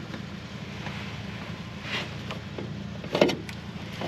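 Nissan 240SX engine running with a steady low hum, with a short louder knock about three seconds in.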